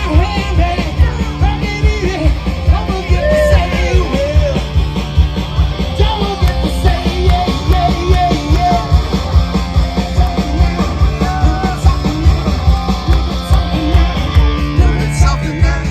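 Live rock band playing loudly, with a steady drum beat and bass under a wavering lead melody.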